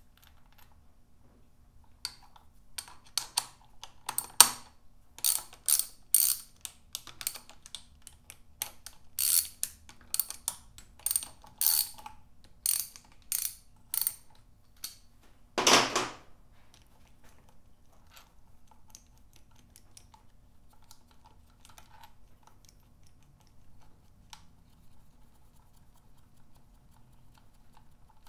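Hand ratchet clicking in short bursts as 10 mm bolts are turned out of a Honda CB550 cylinder head. About halfway through there is one louder, longer clatter, then only a few faint clicks.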